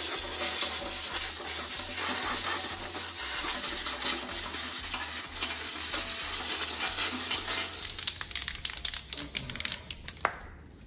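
Compressed air hissing from an air-line blow gun into a pressed-steel oil sump, with small metal bits rattling and clicking against the steel. Near the end the air stops and only scattered clicks of loose bits remain.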